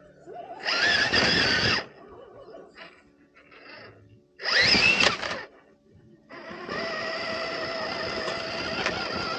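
Electric motor and gears of a scale RC crawler truck whining in two short bursts of throttle, about a second in and again near the middle, the pitch wavering up and down. From a little past the middle, steady background music comes in.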